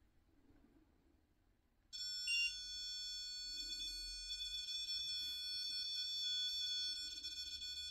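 A high-pitched electronic alarm tone, several steady pitches at once, starts suddenly about two seconds in and keeps sounding without a break.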